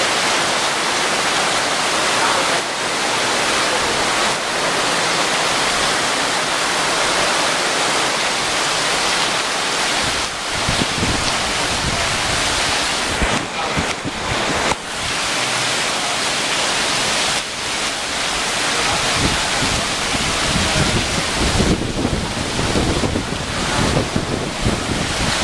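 Hurricane rain pouring down in a steady loud hiss, with gusts of wind rumbling on the microphone from about ten seconds in.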